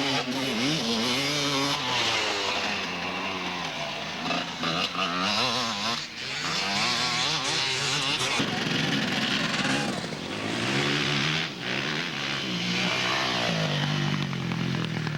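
Off-road motorcycle engines revving as the bikes race past, several at once, their pitch rising and falling again and again.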